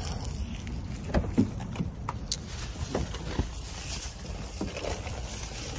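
Low steady rumble of wind and handling on a phone microphone, with a few light knocks and clicks scattered through it.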